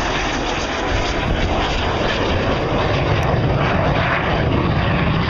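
Canadair Sabre jet flying past on a slow pass, a loud jet rush that swells about a second in and then holds.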